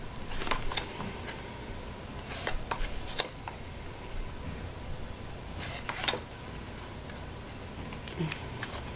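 Tarot cards being handled and slid one by one from one hand to the other: a few clusters of short papery swishes and flicks a couple of seconds apart, each card slipping off the fanned deck.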